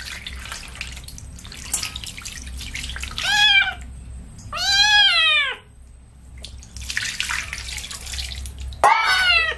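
A wet kitten meowing loudly three times as it is bathed, each meow rising then falling in pitch. Between the meows comes the splash of water poured over it from a metal bowl.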